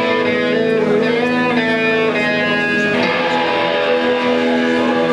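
Electric guitars played live through amplifiers: a dense wash of sustained, ringing notes with a few sliding pitches, changing to a new chord about three seconds in.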